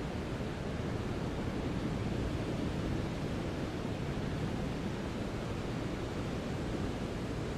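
Brown noise: a steady, even rumble-like hiss, strongest in the low range and falling off toward the highs, with no changes.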